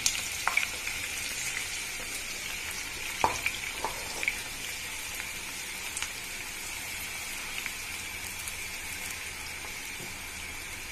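Sliced onions deep-frying in hot oil in a kadhai, a steady sizzle as they are fried toward golden brown. A few light knocks sound in the first four seconds.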